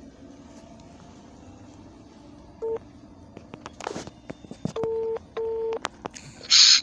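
Mobile phone on loudspeaker placing a call: a short beep about two and a half seconds in and a few clicks, then a double ring of the ringback tone (two short tones in quick succession). A short, loud hiss follows near the end.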